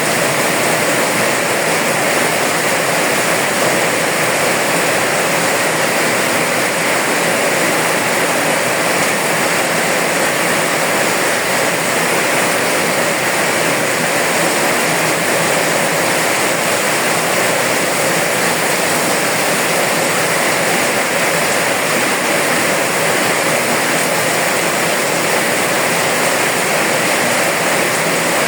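Steady rain, a constant even hiss that holds the same level throughout, with no single drops, thunder or other events standing out.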